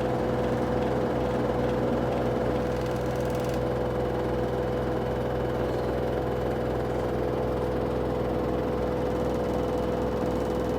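LG WM3455HW front-load washing machine running, a steady hum with a constant high whine over it.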